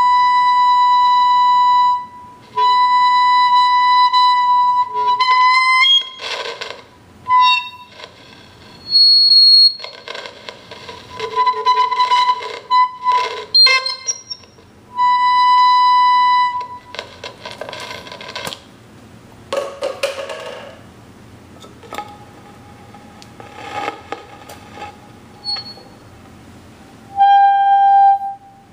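Feedback tone from a microphone and amplifier loop resonating in a cardboard tube: a steady, pure, high-pitched whistle that sounds and stops several times as the microphone is moved in the tube, briefly jumping to a higher pitch. Scratching and rustling of the microphone against the tube fill the gaps, and near the end a slightly lower whistle sounds twice from a wider tube.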